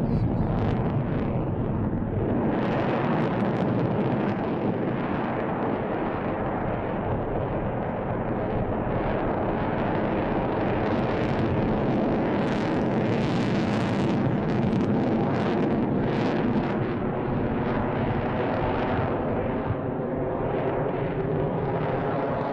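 Lockheed Martin F-22 Raptor's twin Pratt & Whitney F119 turbofans in a low display pass: a steady jet roar with crackling, strongest around the middle.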